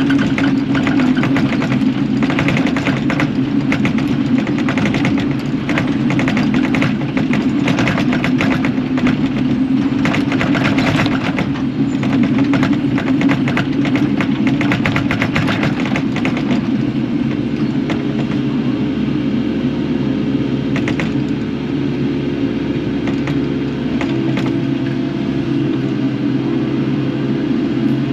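Kubota KX080 excavator working, its diesel engine running steadily under load. Dense rattling and scraping runs over the engine for about the first 16 seconds, then the machine goes smoother, with a steady higher whine over the engine.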